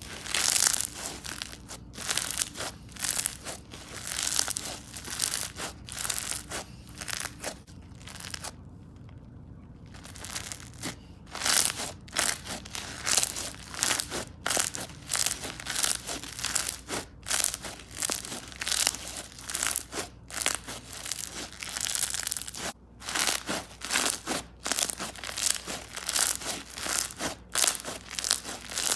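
Bingsu bead slime squished, pressed and stretched by hand on a hard counter, giving a dense run of crunchy, crackling pops, with a short lull about nine seconds in.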